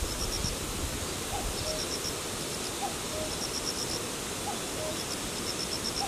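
Common cuckoo calling its two-note 'cuck-oo', the second note lower, three times about a second and a half apart, with a fourth starting at the very end. Grass insects chirp in quick trains of four or five high notes over a steady hiss.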